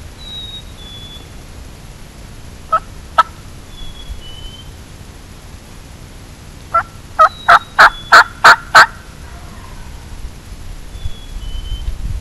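Wild turkey calling: two short, sharp clucks, then a few seconds later a run of seven loud, sharp yelps, about three a second, growing louder.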